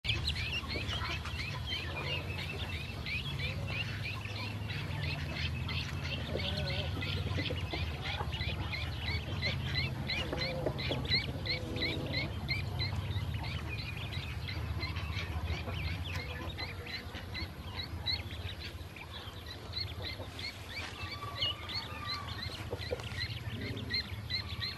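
A group of ducklings peeping continuously, many short high chirps overlapping in quick succession, over a steady low rumble.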